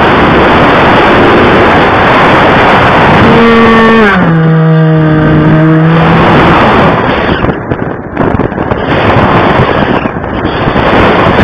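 RC plane in flight recorded by its onboard camera: loud wind rush over the microphone with the motor and propeller running. About three seconds in a steady motor tone comes through, drops in pitch about a second later, and fades out near the middle.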